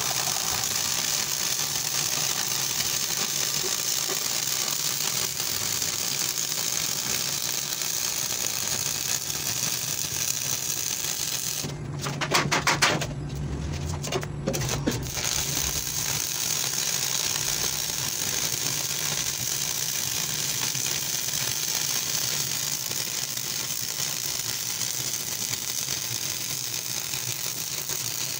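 Stick (SMAW) welding arc crackling and hissing steadily as a bead is run on a steel floor plate. About twelve seconds in the arc stops for roughly three seconds, with a few sharp clicks, then strikes up and runs on.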